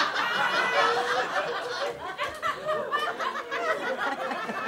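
Audience laughing together after a punchline, the laughter easing off about two seconds in.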